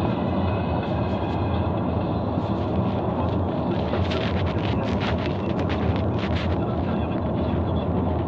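Car interior noise while driving: a steady low road and engine rumble heard from inside the cabin, with a few light clicks or rattles around the middle.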